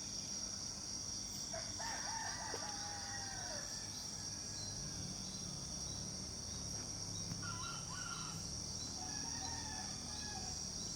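A rooster crows about two seconds in, its call dropping in pitch at the end, and fainter crows follow later, over a steady high drone of insects.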